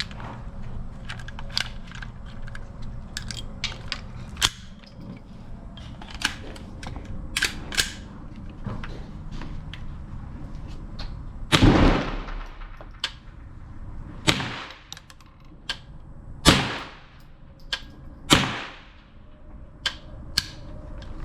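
Small metallic clicks and knocks of the rifle being handled, then four single shots from an AR-15 pistol fitted with a CMMG .22 LR conversion kit, about two seconds apart, each with a long fading echo.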